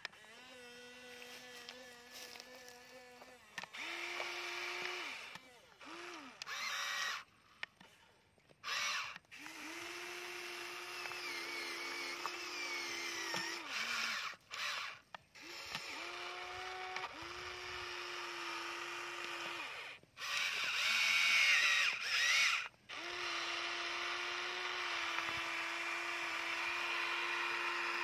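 Electric motors and gearboxes of a HUINA remote-control toy excavator whirring, stopping and starting again in stretches of one to a few seconds as its tracks and arm are driven. Each run is a steady whine with a gear hiss over it.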